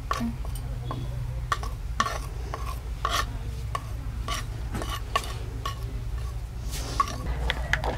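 A metal spoon scraping ground spices off a ceramic plate into a glass bowl of yogurt: a string of short, irregular scrapes and light clinks of spoon against plate and glass.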